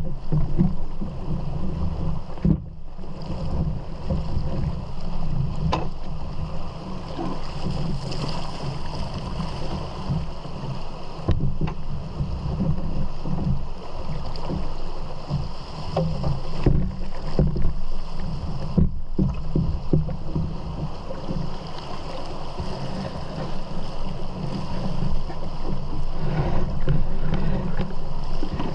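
Rushing water of small rapids around a canoe as it is poled upstream, with heavy wind rumble on the microphone and a few short knocks.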